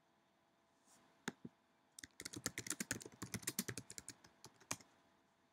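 Typing on a computer keyboard: two key clicks about a second in, then a quick run of keystrokes for nearly three seconds.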